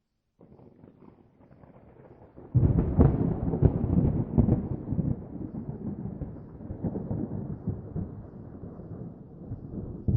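A thunderclap: a faint low rumble builds, then a sudden loud crack about two and a half seconds in, crackling for a couple of seconds before trailing off into a long rolling rumble.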